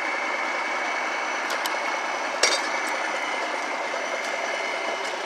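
Steady engine running noise from a diesel truck idling, with a few short clicks, the sharpest about two and a half seconds in.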